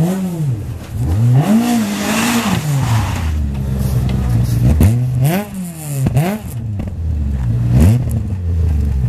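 Rally car engine revving hard, its pitch climbing and dropping sharply again and again as the driver changes gear and lifts off the throttle.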